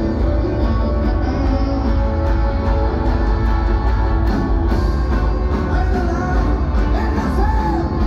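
Live rock band playing loud amplified music through a concert PA, with a heavy bass line and a singer's voice, heard from among the audience.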